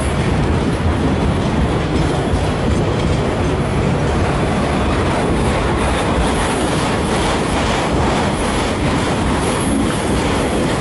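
Freight train cars rolling past close by at low speed: a steady, loud rumble of wheels on rail with faint repeated clicks from the rail joints.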